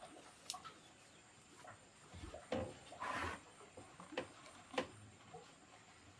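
Quiet handling noises: a few light taps and clicks and a brief rustle about three seconds in.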